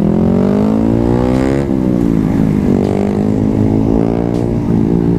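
Yamaha MT-03's parallel-twin engine accelerating from a slow roll: the revs rise, drop sharply at an upshift about a second and a half in, rise again, then hold steady as the bike cruises.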